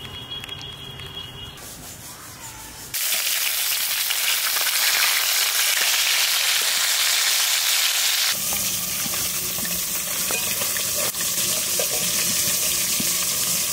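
Climbing perch (koi fish) frying in mustard oil in an iron wok: a loud, steady sizzle that starts suddenly about three seconds in and eases off a little about eight seconds in.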